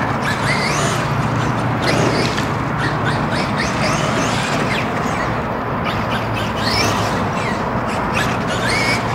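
Electric RC car's motor whining, its pitch rising again and again as the car accelerates out of corners and backs off, over a steady hiss.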